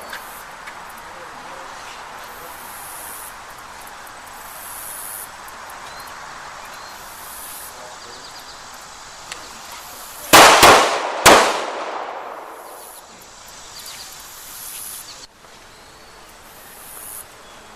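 Three handgun shots in quick succession about ten seconds in: a fast pair, then a third a moment later, the two-to-the-body, one-to-the-head string of a defensive shooting drill. A steady hiss underlies it.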